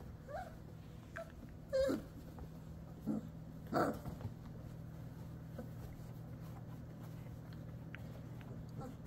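Three-and-a-half-week-old German shorthaired pointer puppies giving a handful of short, wavering whines, the loudest about two seconds and four seconds in, then only faint small sounds over a steady low hum.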